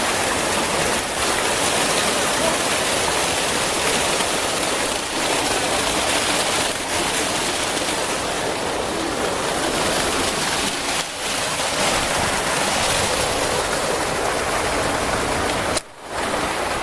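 Steady rush of running water, cutting out briefly about a second before the end.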